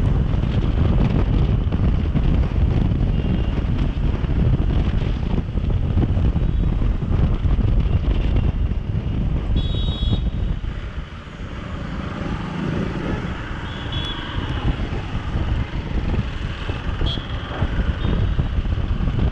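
Wind rushing over the microphone together with the Hero Xpulse 200's single-cylinder engine while riding in city traffic; the roar eases about ten seconds in as the bike slows. A couple of short high-pitched beeps sound from the traffic.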